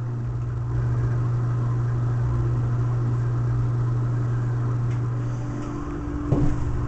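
A steady low hum, like a small motor running, with a couple of short knocks about six seconds in as the camera is moved.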